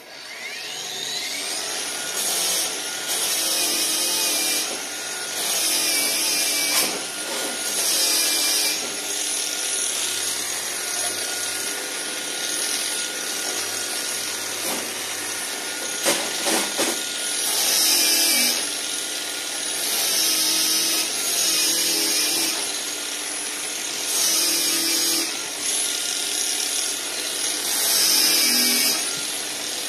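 Angle grinder spinning up, then cleaning a flux-cored weld on steel plate, grinding in repeated short passes with its high motor whine between them.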